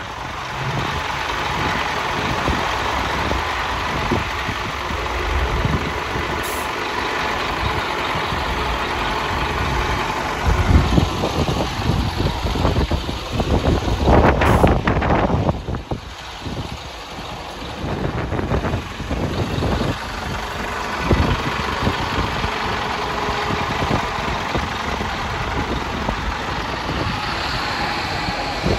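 Diesel engine of a double-decker bus running at idle close by, a steady low rumble, with wind buffeting the microphone and louder gusts about halfway through.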